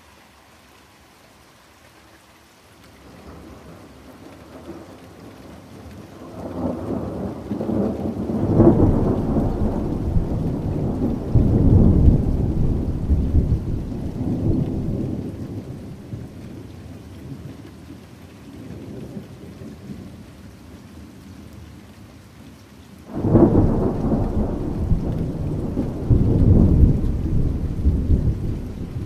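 Rain falling steadily with two rolls of thunder: the first builds gradually from about three seconds in and rumbles for over ten seconds before fading, the second breaks suddenly near the end and rolls on.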